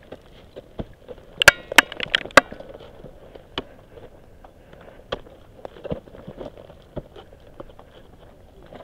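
Ice axe picks and boots striking into firm snow on a steep climb: a quick cluster of sharp, slightly ringing metallic clicks about a second and a half in, then single knocks every second or so.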